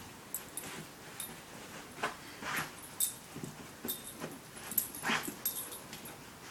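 A dog pawing and scratching at a fabric blanket in irregular strokes, the cloth rustling, with a few short whimpers.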